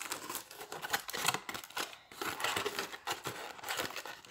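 Aluminium foil crinkling as hands press and shape a crumpled foil ball into a bowl: a quick, irregular run of small crackles.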